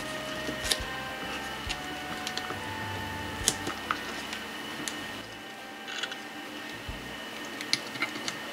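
Scattered light clicks and taps of a Celeron G4930 processor being handled and set into the motherboard's CPU socket.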